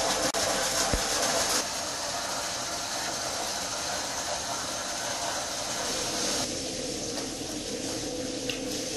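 Hot spring water pouring from an inlet pipe into a metal soaking tub: a steady rushing splash. Its tone shifts about a second and a half in and again past the middle, with a brief dropout and a click in the first second.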